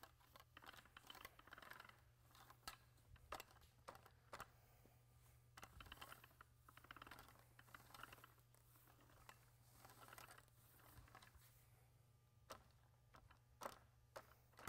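Faint soft swishing and light sticky crackle of a nap paint roller spreading wet water-based epoxy sealer over a concrete floor, with scattered small clicks.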